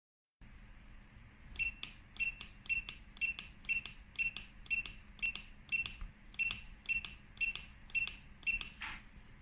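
Queue-calling keypad beeping once for each button press, about fourteen short high beeps in a row at a little under two a second, each with a light key click. A brief rustle follows near the end.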